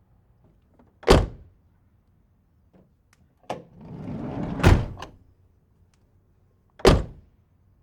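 Old van's doors slammed shut three times: one slam about a second in, a second near the middle that follows a click and about a second of rolling, scraping noise, and a third near the end.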